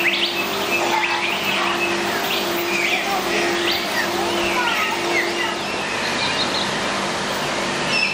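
Several small birds chirping and tweeting in quick, overlapping short calls, over a steady background hiss and a low hum.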